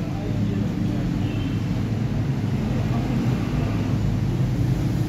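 A steady low mechanical rumble that holds even throughout.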